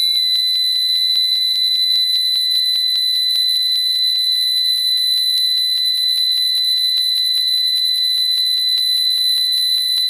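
A 5V DC buzzer in a MOSFET trip-wire alarm circuit sounding a loud, steady, high-pitched tone. The trip wire has been cut, which sets off the alarm.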